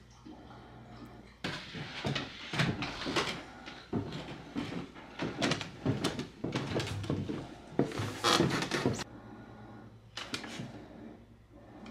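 Footsteps coming down wooden stairs: a run of irregular knocks and thumps, with a brief rustling clatter near the end.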